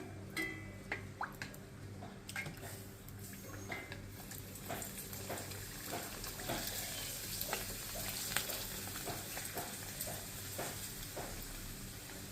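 Prawn crackers frying in hot oil, sizzling and crackling. A few separate clicks come first, then the crackling grows dense and busy through the middle and eases off near the end.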